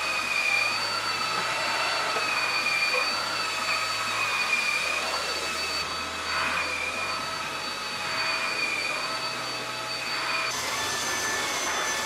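Proscenic F20 cordless wet-dry vacuum mop running as it is pushed across a hard floor: a steady rush of suction with a high motor whine that wavers slightly. The whine changes to a different pitch near the end.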